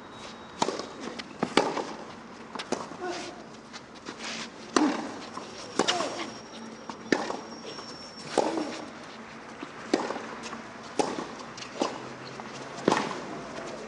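Tennis rally on a clay court: a tennis ball struck by rackets and bouncing, a sharp pop about once a second, with players' grunts on some strokes over a low crowd hush.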